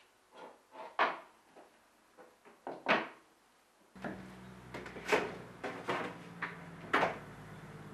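Kitchen handling noises: a string of sharp knocks and clacks, then from about four seconds in a steady low hum under more clunks as a refrigerator door is pulled open.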